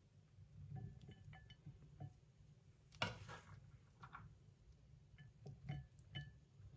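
Faint, scattered clinks and taps of kitchenware, with one brief louder rustle about three seconds in, over a low steady hum.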